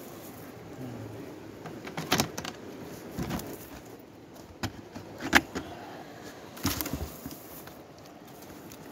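Metal chain weights of a cast net clinking and knocking against stones as the wet net is lifted and shaken out, a handful of sharp clicks scattered through, the loudest a little past halfway, over a steady hiss.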